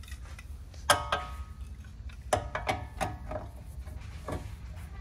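Steel pry bar levered against the upper control arm and ball joint of a 2010 Chevy Tahoe's front suspension, giving about five sharp metallic clinks, each with a brief ring. This is the check of the upper ball joint for play.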